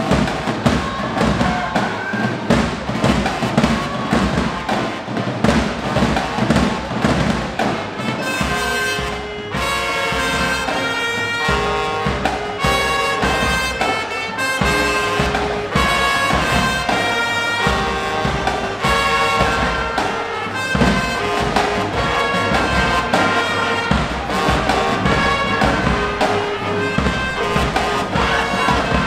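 High school marching band playing: the drum section of bass drums and snare drives a steady beat, and from about eight seconds in the brass and reeds (trumpets, trombones, saxophones, clarinets) come in strongly with held notes over the drums.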